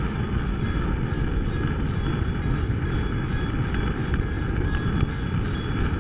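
O-gauge model train running on its track, a steady rumble of wheels on the rails close to the microphone.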